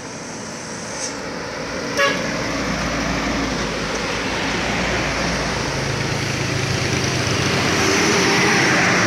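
A truck loaded with sugarcane, then a bus, passing close on a downhill bend: engines and tyres growing steadily louder, loudest as the bus goes by near the end. A short horn toot about two seconds in.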